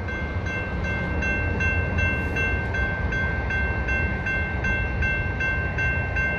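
Railroad grade-crossing bell ringing loud and steady, about two and a half strikes a second, over the low rumble of intermodal freight cars rolling slowly through the crossing.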